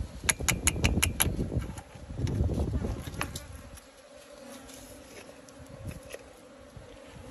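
Bees buzzing steadily in the background. A quick run of about six sharp clicks comes near the start, over a low rumble.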